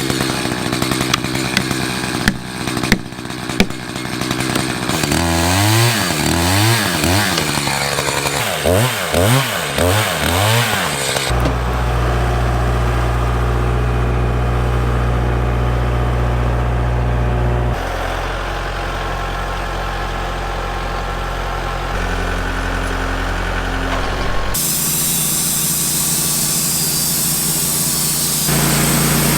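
A chainsaw cutting and revving, its pitch rising and falling several times over a few seconds. Then a steady engine runs at a constant speed, its pitch and tone changing abruptly several times.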